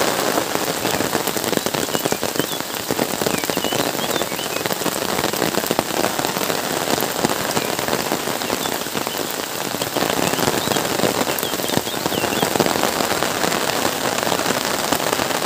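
Heavy rain falling steadily, a dense patter of drops on standing water and grass.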